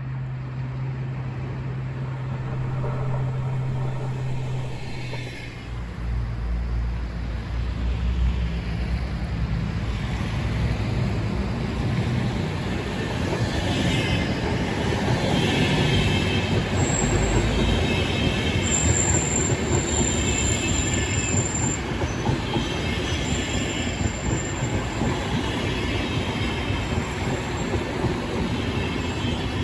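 VR double-deck passenger coaches rolling slowly past on steel rails, with a clatter from the wheels repeating about every two and a half seconds. Brief high-pitched wheel squeals come in around the middle.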